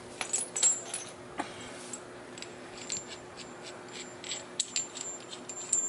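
Loose suspension bolts and nuts clinking together in the hand as they are sorted, a string of light, irregular metallic clicks.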